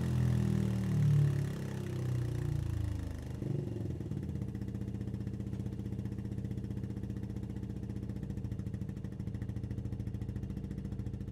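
Benelli BN 125's single-cylinder four-stroke engine, breathing through a Scorpion stainless full-system exhaust with Serket Taper silencer, coming down off the revs and settling into a steady idle about three and a half seconds in, with an even beat of exhaust pulses.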